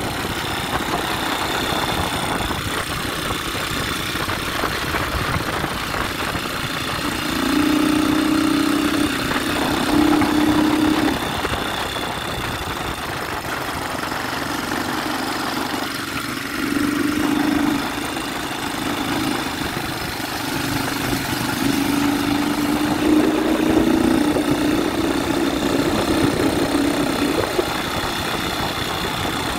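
ATV engine running while riding, with wind rushing over the microphone. The engine note swells and climbs in pitch several times: about a quarter of the way in, again just past the middle, and for a longer stretch in the last third.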